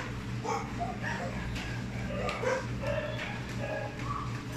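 Puppy whimpering and yipping in many short cries, over a steady low hum.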